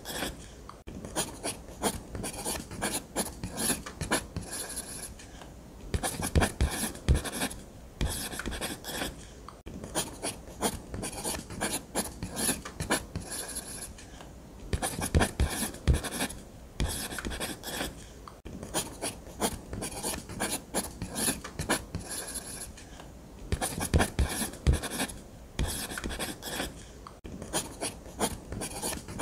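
Nataraj ballpoint pen scratching across paper in quick repeated strokes, broken by short pauses every few seconds.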